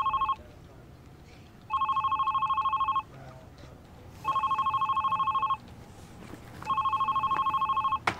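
Electronic office desk phone ringing with a fast trilling warble, in bursts of a little over a second that repeat about every two and a half seconds, three full rings. A sharp click comes just before the end.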